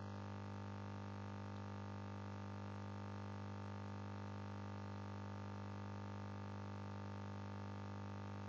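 Steady low electrical mains hum with a row of higher overtones, unchanging throughout.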